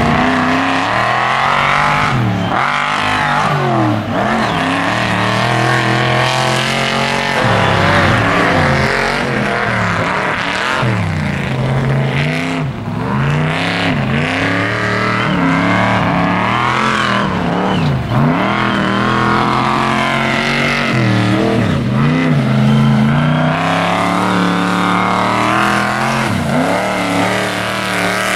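Mega mud truck engine revving hard, its pitch climbing and dropping again and again as the truck drives with its tires spinning and roosting dirt.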